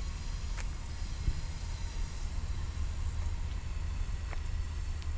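Low, steady rumble of a distant freight train's diesel locomotive approaching.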